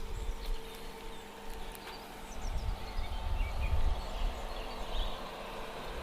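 Outdoor ambience: birds chirping over an uneven low rumble and a steady hum.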